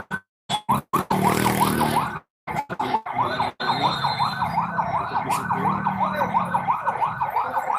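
Emergency vehicle siren in a fast yelp, rising and falling about four times a second over a low rumble. The sound cuts out briefly several times in the first few seconds.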